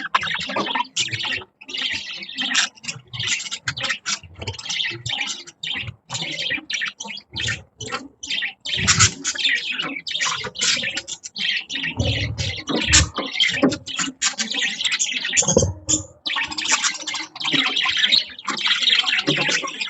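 Several budgerigars chirping and chattering nonstop in rapid, overlapping calls, with a few low thuds around the middle.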